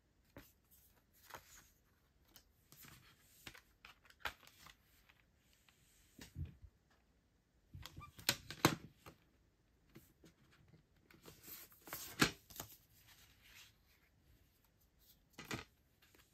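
Hands handling photocards and a plastic CD jewel case: light rustling and tapping of cards and plastic, with clusters of sharper plastic clicks about halfway through and again a few seconds later as the jewel case is opened and its contents taken out.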